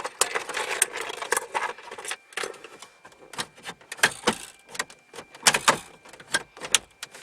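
Plastic cupholder tray in a Toyota Previa dashboard being wiggled and pushed down into position: irregular clicks, knocks and rattles of plastic on plastic, busiest in the first two seconds.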